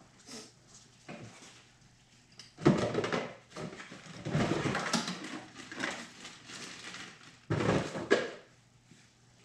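Metal hand tools clanking and rattling as they are handled and sorted, in three short bursts of clatter, the first about three seconds in and the loudest.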